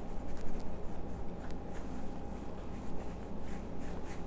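Gloved hands rubbing exfoliating scrub over the skin of a foot: a soft, uneven scratchy rustle of short strokes.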